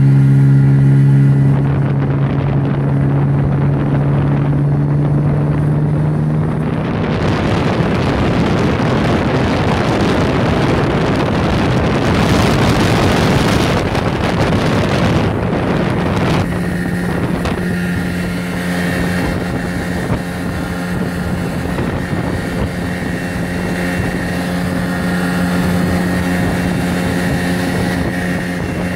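Golfstream (Parsun) T8BM 8 hp two-stroke outboard motor running under way, with wind on the microphone and water rushing past the hull. For several seconds in the middle the engine note is buried under wind and splash noise; from about halfway it comes back as a steady, higher note.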